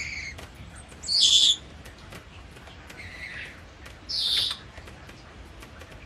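African grey parrot giving short, high-pitched calls: two loud ones about three seconds apart, with softer calls before and between them.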